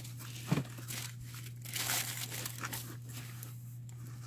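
Rustling and crinkling of a woven throw blanket being handled and turned over, with a soft thump about half a second in, over a steady low hum.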